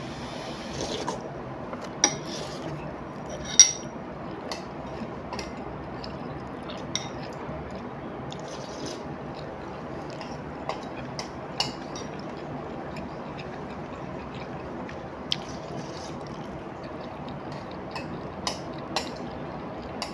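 Eating laksa with wooden chopsticks from a ceramic bowl: a slurp of noodles and soup near the start, then scattered sharp clicks of the chopsticks against the bowl, the loudest a few seconds in, over a steady background noise.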